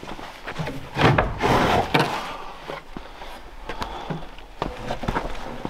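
Wooden knocks and thuds from a homemade lumber staircase being pulled loose from a doorway and lifted away, with a longer scraping clatter of wood on wood about a second in.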